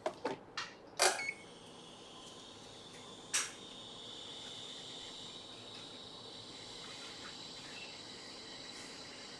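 A few sharp clicks, then a hot air rework station blowing with a steady hiss and a faint high whine from about a second in, heating the PS4 board to lift off the broken power button. Another click comes a few seconds in.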